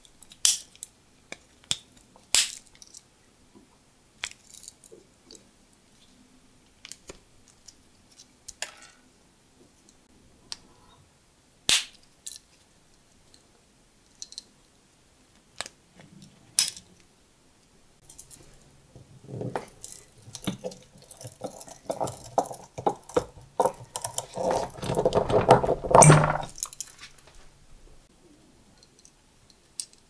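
Victorinox Swiss Champ multitool being handled, its tools snapping open and shut with sharp metal clicks, about a dozen over the first seventeen seconds. Then comes a stretch of denser scraping and rattling as the knife is worked in the hands, loudest a couple of seconds before the end.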